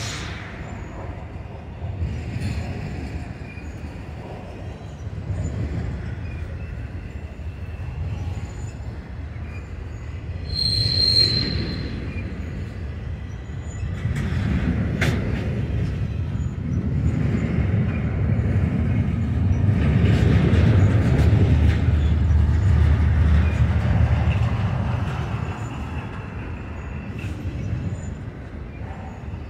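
BNSF double-stack intermodal freight train rolling past, its cars rumbling steadily over the rails. About a third of the way through comes a brief high wheel squeal, and the rumble grows louder past the middle before easing off near the end.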